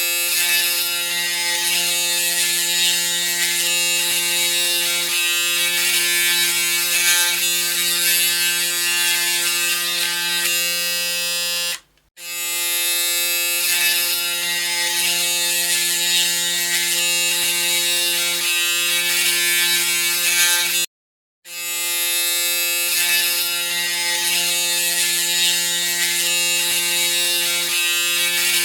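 Electric shaver running with a steady buzz. Twice it stops for a moment and starts again.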